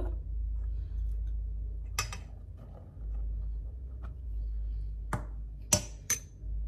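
A few short knocks and clinks of a small ceramic bowl and a spoon against a stainless steel mixing bowl as gram flour is tipped in, over a low steady hum: four sharp strikes, one about two seconds in and three close together near the end.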